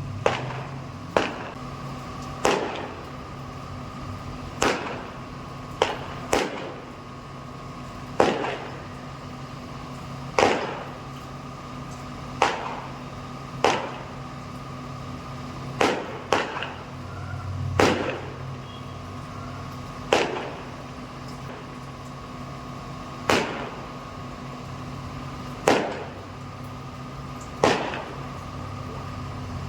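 Fireworks exploding: a long string of sharp single bangs, one every one to three seconds, each dying away quickly, over a steady low hum.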